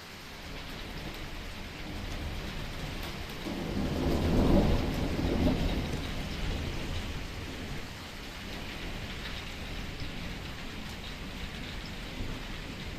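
A roll of thunder over light, steady rain. The low rumble swells about three and a half seconds in, peaks a second later and fades away over the next couple of seconds, while the rain hiss goes on.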